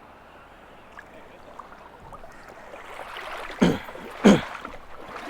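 River water running steadily, with two loud splashes in the water about three and a half and four and a quarter seconds in.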